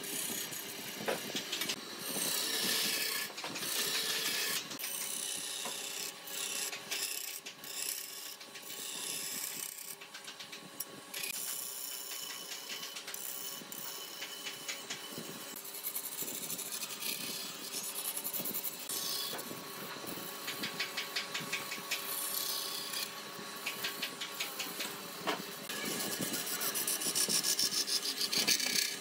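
Wood lathe running with a turning tool scraping and cutting the spinning wood in uneven strokes over the steady hum of the machine, ending in a fast, even chatter.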